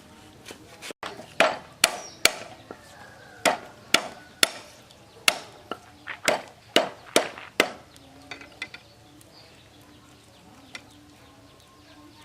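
Knife chopping on a cutting board: about a dozen sharp, uneven chops over some six seconds, stopping about eight seconds in.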